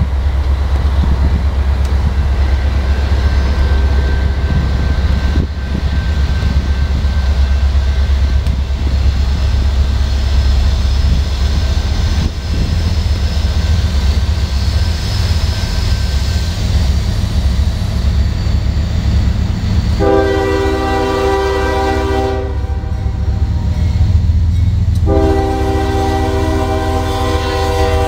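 Strong wind buffeting the microphone, a steady low rumble, and a CSX freight locomotive's air horn sounding two long blasts, starting about 20 seconds in, as the train approaches.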